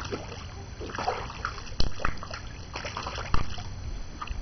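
Pool water splashing and sloshing in small irregular bursts as a baby held upright in the water kicks, with two sharp slaps on the water, one about two seconds in and one about three and a half seconds in.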